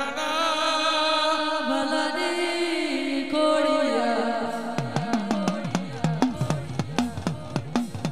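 Gujarati devotional folk song (regadi) to the goddess Khodiyar: an ornamented, wavering melodic line with no drums at first, then percussion comes in about halfway and keeps a quick, steady beat of about three strokes a second.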